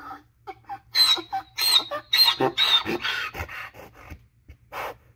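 A donkey at the tail end of a bray: a quick run of short, wheezy, gasping breaths with squeaky high notes, thinning to a few breathy snorts near the end.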